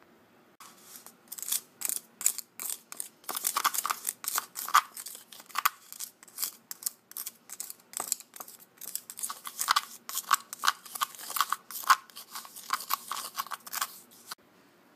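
A plastic spoon stirring and scraping granulated sugar around a cup, a gritty crunching in quick, irregular strokes, as the sugar is mixed with highlighter ink to dye it.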